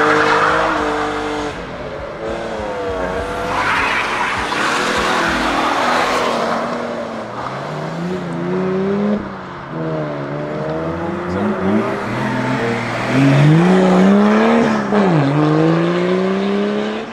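BMW M car's engine and exhaust under hard throttle, the pitch climbing and dropping several times as it revs and shifts. A broad rushing hiss rides over it about 3 to 7 seconds in.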